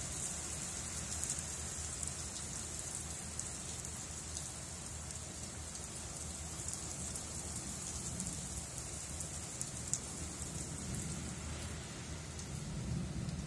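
Steady rain falling, with scattered drops ticking on nearby surfaces. A low rumble of distant thunder swells near the end.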